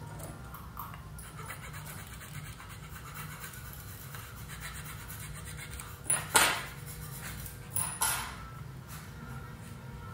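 Metal hand file scraping lightly at the plastic edges of the drilled-out microphone hole in a Baofeng UV-5R radio case, a faint scratching. Around six seconds in and again around eight, two pairs of sharp clacks as the metal tools are set down on the wooden table.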